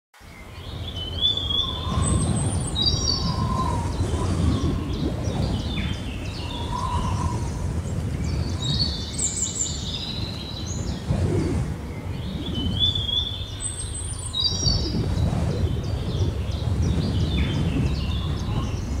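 Birds chirping in short phrases over a low, steady rumbling background, fading in at the start. A similar chirping phrase comes back every five or six seconds.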